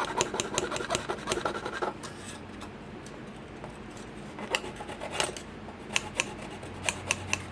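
Small hacksaw cutting the thin plastic of a snap-together model truck chassis. Quick rasping strokes for about two seconds, then a quieter pause, then scattered sharp clicks.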